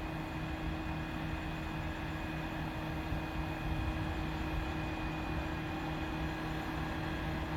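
Large mobile crane's diesel engine running steadily, a continuous drone with a thin steady whine over it, while the crane holds and slews a suspended load.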